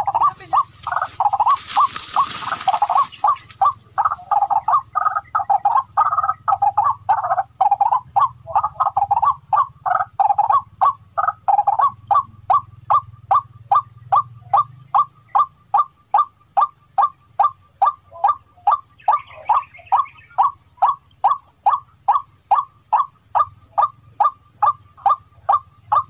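Waterhen calls repeated over and over in a long series, crowded and overlapping at first, then settling into an even rhythm of about two notes a second, played as a recorded lure call.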